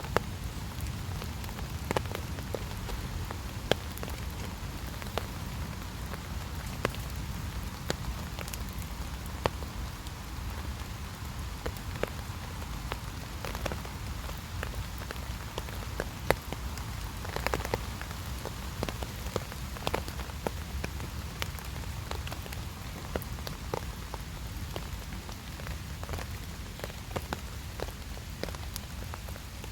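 Steady rain falling, with many sharp, irregular drop hits ticking on a nearby surface.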